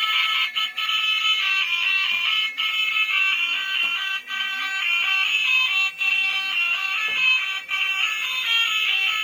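A high-pitched electronic tune of steady, beeping notes stepping from one pitch to the next.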